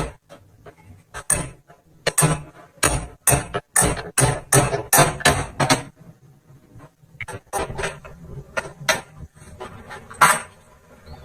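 A series of nearly twenty sharp knocks with short ringing, coming in quick irregular succession for the first half and more sparsely after, with the loudest one about ten seconds in.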